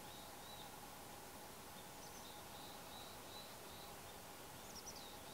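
Faint outdoor quiet with a small bird calling: a string of thin, high short notes and a couple of quick falling chirps, about two seconds in and near the end.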